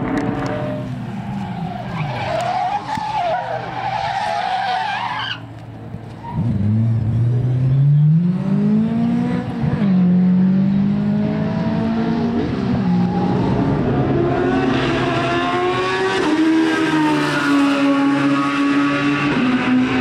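Racing car engines running hard on a circuit, cars passing one after another. After a brief lull about five seconds in, an engine accelerates with a steadily rising pitch, then drops at a gear change. A higher-pitched engine comes through near the end.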